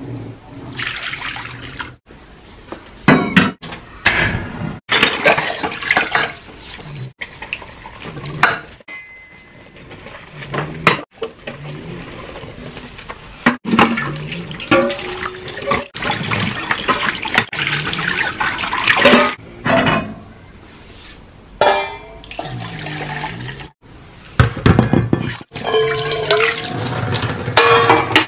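Washing up at a kitchen sink: tap water running and splashing while stainless steel pots and pans clank against each other and are stacked into a plastic dish rack. The sound comes in short stretches that cut off abruptly.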